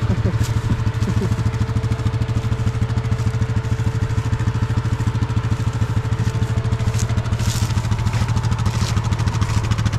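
An off-road vehicle's engine idling steadily, with a faint steady whine over it that stops near the end.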